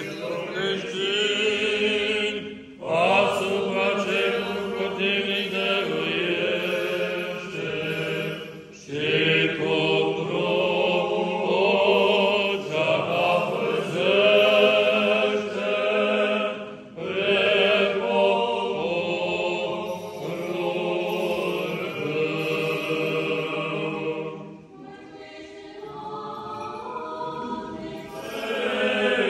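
Orthodox liturgical chant sung by church singers in long melodic phrases with brief breaths between them, over a low note held steadily underneath. The singing drops quieter for a few seconds near the end, then comes back in full.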